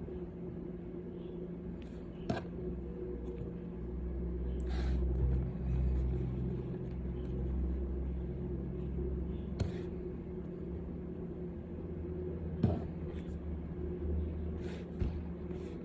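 A steady low rumble with a faint hum in the background, broken by a handful of light taps and paper rustles as a spiral notebook is handled and written in on a desk.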